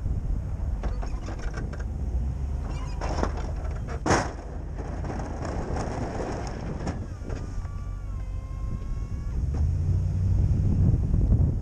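Ford F-250 plow truck's engine running with a low rumble that grows louder near the end, with scattered knocks and one sharp knock about four seconds in. From about seven seconds a steady whine lasts some two seconds while the SnowEx V-plow's hydraulic pump moves the blade wings.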